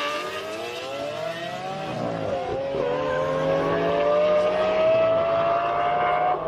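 Supercar engine at full throttle in a drag race, its pitch climbing steadily, with a brief dip for an upshift about two and a half seconds in before it climbs again.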